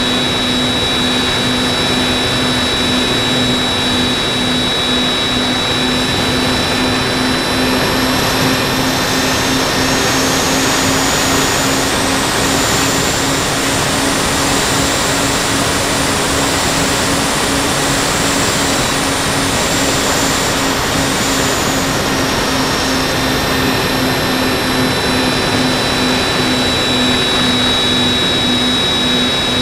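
Twin electric motors and propellers of a My Twin Dream FPV model plane running in flight, heard from the onboard camera as a steady hum over a rushing noise. A high whine climbs in pitch about ten seconds in, holds, and falls back about twenty-two seconds in as the motors speed up and slow down.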